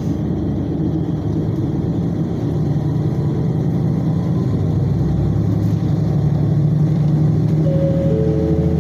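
Diesel railcar engine working under load as the train pulls away from a station, heard from inside the carriage, its low hum building as it gathers speed. Near the end a faint steady tone joins in.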